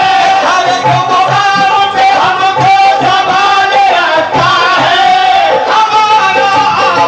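Qawwali music: a voice singing a long, wavering melody over a steady hand-drum beat.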